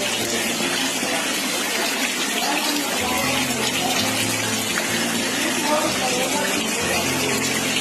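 Steady rush of water with no breaks, from flooding in a monsoon downpour, with faint voices under it.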